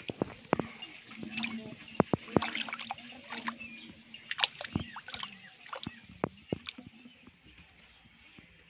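A fish thrashing in shallow water at a muddy bank: a quick, irregular run of slaps and splashes that thins out about seven seconds in.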